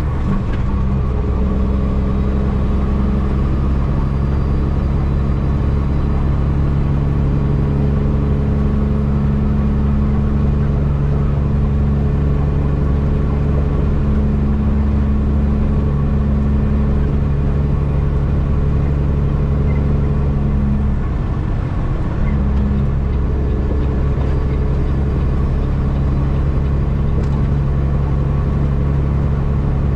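Cummins diesel of a straight-piped Peterbilt 379, a steady low drone heard from inside the cab while cruising at highway speed. About two-thirds of the way through the drone briefly drops and then comes back.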